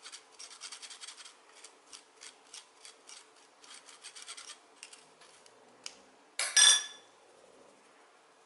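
A metal spoon scraping and rubbing ground buckwheat through a fine stainless-steel mesh sieve in quick, repeated strokes, about three a second. The strokes push the flour through and leave the husks behind. About six and a half seconds in, the scraping has stopped and a single loud, ringing metallic clink follows.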